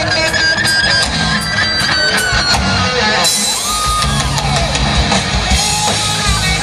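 Rock band playing: guitar over a drum kit, with long held guitar notes and one note that swells and falls away about four seconds in.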